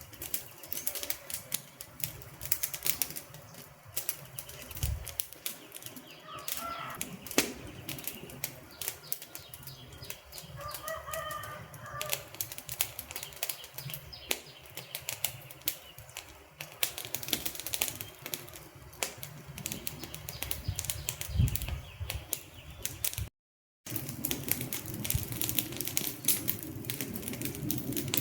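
Wood fire crackling with many irregular sharp pops and snaps, with two brief faint bird calls in the first half. The sound cuts out completely for about half a second near the end.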